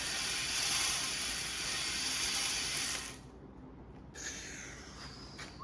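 A steady hiss of spraying, like water or air from a nozzle, that cuts off suddenly about three seconds in.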